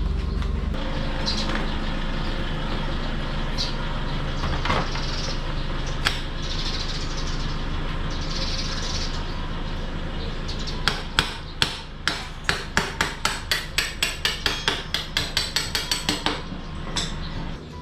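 Hand tools working metal parts: a few single knocks, then a run of sharp, quick taps about four a second lasting some five seconds in the second half. A steady hiss and hum sits under it.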